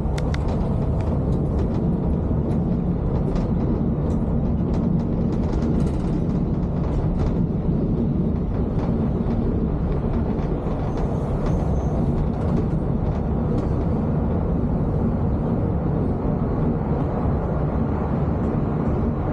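Cabin noise of a Volvo B11R diesel coach under way: a steady drone of engine and tyres on the road, with scattered light clicks and rattles.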